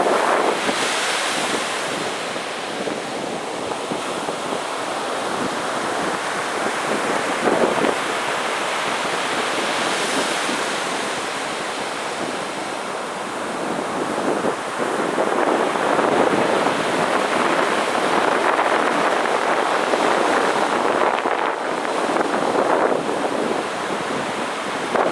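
Large sea waves breaking on a beach: a continuous wash of surf that swells and eases, louder in the second half, with wind noise on the microphone.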